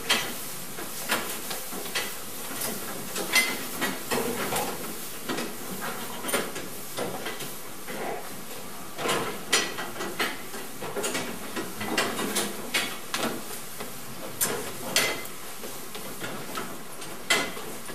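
Scattered clanks and knocks of goats shifting against metal stanchion rails, irregular and some sharp, over a steady hiss.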